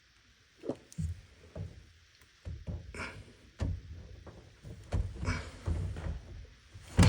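Irregular thunks and knocks of hands and tools working on a dishwasher's water fill valve, with rustling between the hits and the loudest knock near the end.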